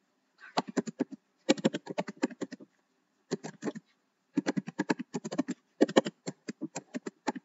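Computer keyboard typing: quick runs of keystrokes, about five runs with short pauses between them.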